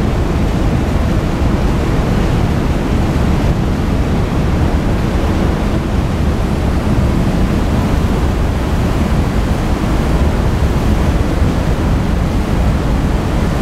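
Steady rush of water churned by a car ferry's propellers as the ship pulls away from its berth, with a low rumble underneath.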